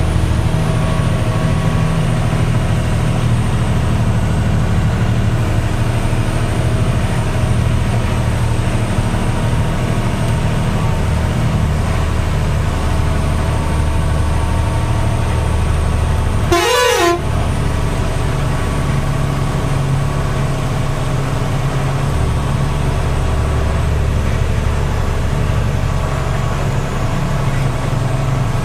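Truck engine running steadily, heard from inside the cab while driving, with one short harsh burst of noise a little past halfway through.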